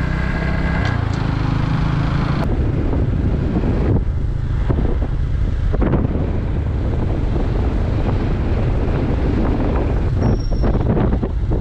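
Wind buffeting the microphone over the steady running of a motorcycle riding along the road.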